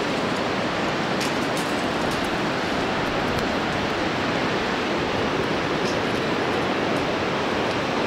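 Fast-flowing river rushing steadily, with a couple of faint clicks.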